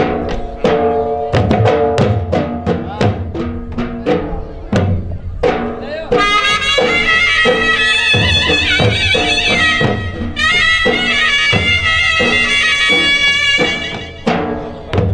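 Loud folk dance music for a ras: a steady drum beat, joined about six seconds in by a reedy wind-instrument melody that bends in pitch, which drops out again shortly before the end.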